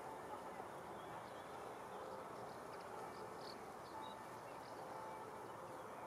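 Bumblebees buzzing among flowering lavender over a steady background noise, with a few short, faint high chirps from small birds.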